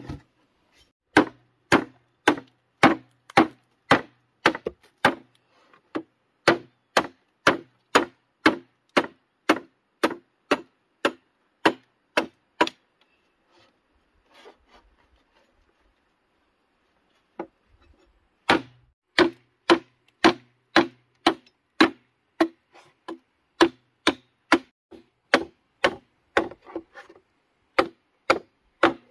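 Machete chopping into bamboo poles, a steady run of sharp woody strikes about two a second. The chopping stops for a few seconds in the middle, then resumes and quickens near the end.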